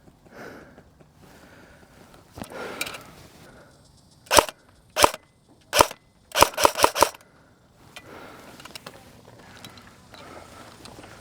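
Airsoft gun firing: three single sharp pops roughly half a second apart about four seconds in, then a quick string of about five shots.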